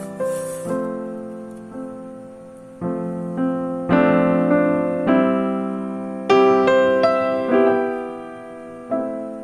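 Background piano music: notes and chords struck about once a second and left to ring out.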